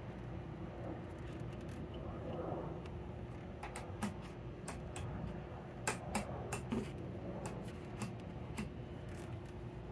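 Scattered small clicks and rubbing from hands working at the radio and its controls, over a faint steady hum. The radio itself gives no sound from its speaker.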